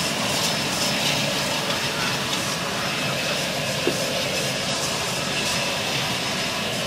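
Air Tractor 502 crop duster's Pratt & Whitney PT6A turboprop running steadily at ground idle, a constant turbine whine over the propeller's rush.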